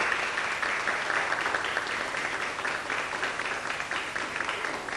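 Applause from a small seated audience, many hands clapping at once, slowly dying away.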